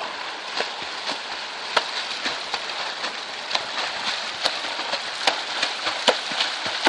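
Swim fins kicking at the surface of shallow seawater: a churning wash of splashing broken by sharp, irregular slaps, about two a second.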